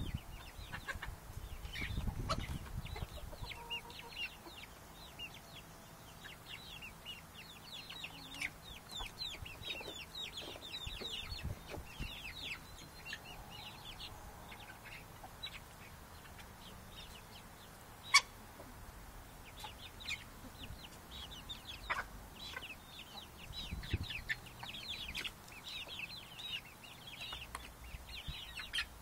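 A flock of chickens feeding at a pile of feed, clucking with a steady run of many short, high chirps. A single sharp click stands out about two-thirds of the way through.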